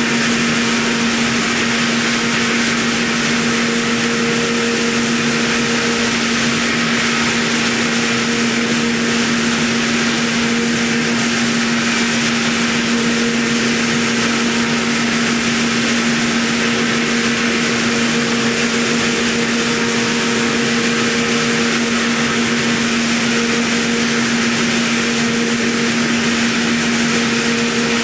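Mikron VCE800ProX milling machine, its spindle running at constant speed while a small end mill cuts a shallow path into a metal block: one steady tone over an even hiss.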